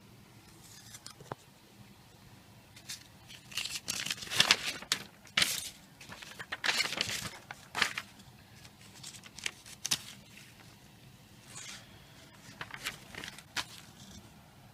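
Paper rustling and crinkling in irregular bursts as printed instruction sheets are handled and leafed through, loudest in the first half.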